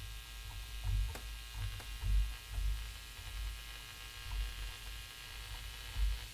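Steady electrical hum and buzz made of many fine tones, over uneven low rumbling swells, with a couple of faint clicks.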